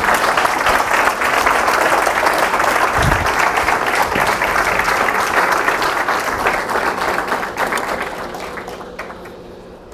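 Audience applauding, steady, then dying away near the end.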